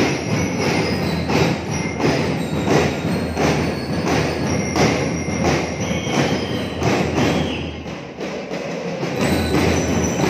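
School drum and lyre band playing: snare and bass drums beating a steady march rhythm, with a strong beat about every two-thirds of a second, and high ringing bell tones over it. It echoes in a large hall, and the level drops briefly near the end.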